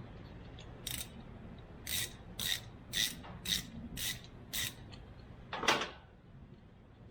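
Short scraping strokes, about two a second, seven in a row, then a louder, longer stroke near the end: a hand tool rasping against the truck's metal shifter linkage parts.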